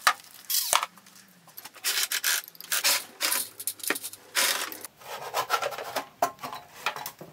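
Sheet-metal column cover of a Sieg X2.7 mini milling machine being worked loose and lifted off. Metal scrapes and rubs in a string of short irregular bursts, with scattered clicks and knocks.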